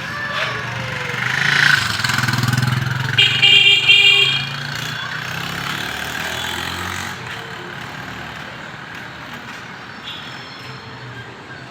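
Street traffic: passing vehicle engines with a steady rumble, and a short horn sounding about three seconds in before the traffic noise settles.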